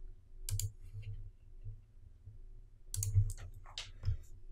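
Sharp clicks and light knocks from a computer mouse and keyboard being worked, in a short group about half a second in and a busier cluster near the end.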